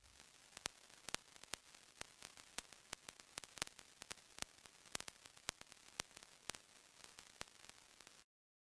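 Faint tape static: a steady hiss with irregular crackling clicks, cutting off suddenly near the end.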